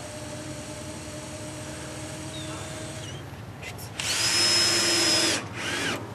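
Cordless drill driving a screw through a metal bracket into a wooden beam: a low background for the first few seconds, then the drill runs in one steady, loud whining burst of about a second and a half, followed by a short blip that speeds up and winds down.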